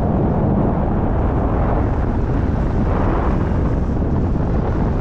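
Steady wind noise buffeting the microphone of a camera held on a selfie stick, from the airflow of a tandem paraglider in flight.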